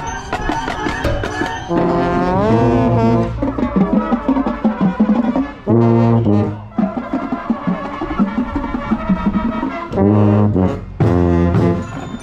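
High school marching band brass playing its show, with the low notes of the tuba beside the microphone strong and close. Held brass chords, a rising glide a couple of seconds in, and loud re-entries after short breaks.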